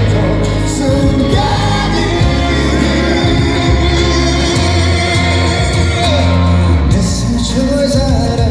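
Live pop music in concert: a singer over a band with a steady heavy bass line.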